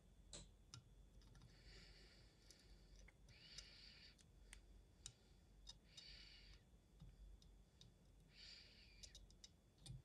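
Near silence, with faint small clicks and four short soft hisses as a soldering iron joins wires to a circuit board's pads.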